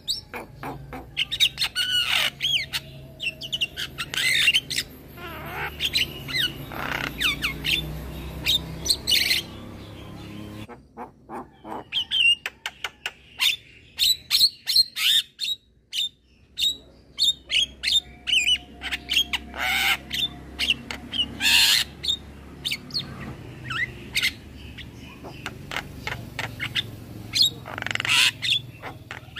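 Young male Javan myna singing: a rapid string of harsh squawks, sharp clicks and short whistled notes, with a brief pause about halfway through.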